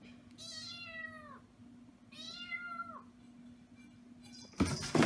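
A black-and-white kitten meowing twice, two separate calls that each drop in pitch at the end, over a steady low hum. A sudden loud, noisy burst comes near the end.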